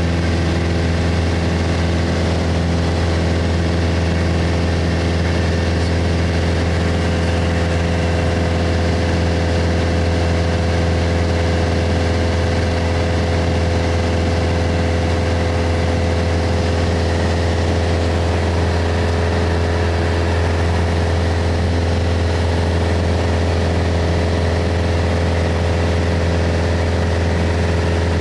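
Single-engine light aircraft's engine and propeller droning steadily in cruise, heard inside the cabin: a deep, unchanging hum with a constant higher tone over it.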